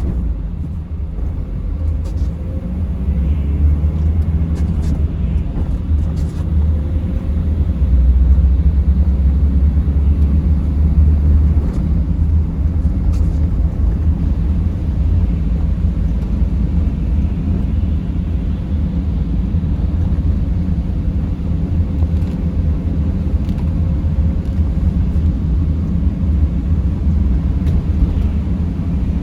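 A vehicle driving: a steady low rumble of engine and tyres on the road, swelling slightly for a few seconds near the middle, with a few faint clicks.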